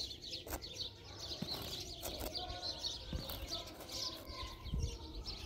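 Small birds chirping repeatedly, with a few sharp clicks in between.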